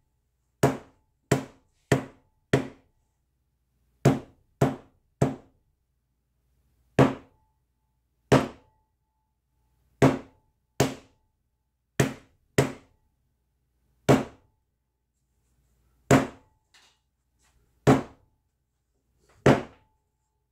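Tack hammer striking wet acrylic paint on a hard painting panel: about seventeen sharp whacks, some in quick runs of two or three, others a second or two apart, each dying away quickly.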